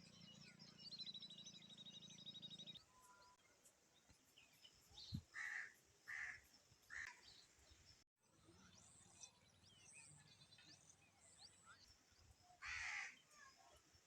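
Faint bird calls: a rapid high trill early on, then three short calls about half a second apart in the middle and one longer call near the end, over a faint low hum.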